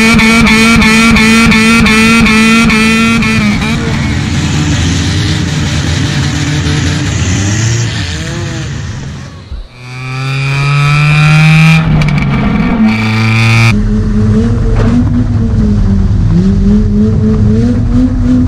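Car engine revved hard: its pitch climbs and holds high for several seconds, falls away and cuts briefly about ten seconds in, then climbs steeply again and settles into a high, wavering run.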